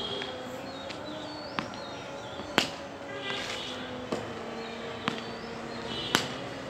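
Five sharp knocks from a cricket bat and ball, the ball struck by the bat and bouncing on concrete. The loudest knock comes about halfway through.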